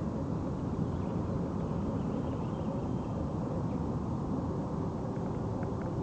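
Steady low outdoor rumble, with a few faint short chirps or ticks higher up.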